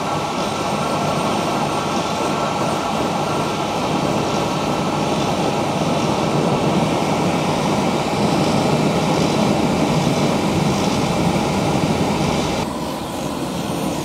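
Homemade forced-air diesel burner running, a steady rush of flame and blower air with a faint steady whine underneath. It is fitted with a 0.85 gallon-per-hour oil nozzle and a radial blower fan. The sound shifts abruptly about a second before the end.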